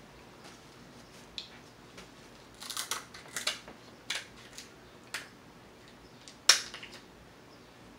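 King crab leg shell being cut with kitchen shears and broken by hand: scattered sharp cracks and snaps, a cluster of them about three seconds in and the loudest single crack near the end.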